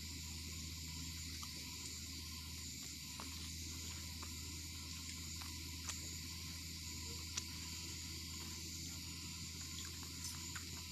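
Steady hiss and low hum with a few faint clicks and rustles of fingers tearing roti on a steel plate.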